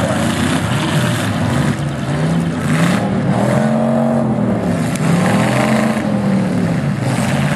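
Demolition derby cars' engines revving up and down repeatedly as the cars push against each other, with several engines running at once.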